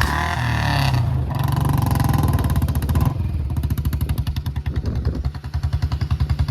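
Royal Enfield Bullet Electra 350's single-cylinder four-stroke engine running with its even, fast exhaust beat. The beat dips in loudness about five seconds in, then picks up again.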